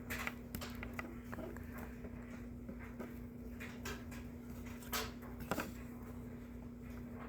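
Faint clicks and light handling noises of trading cards being shuffled through by hand, a few scattered taps with a louder pair about five seconds in, over a steady low hum.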